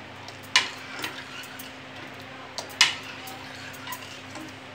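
Metal ladle stirring thin custard in a stainless steel saucepan, with two sharp clinks against the pan, about half a second and nearly three seconds in, and a few lighter scrapes and taps, over a steady low hum.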